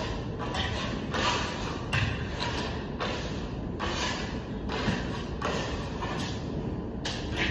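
Hand tools scraping a Venetian plaster ceiling in repeated short strokes, roughly one or two a second.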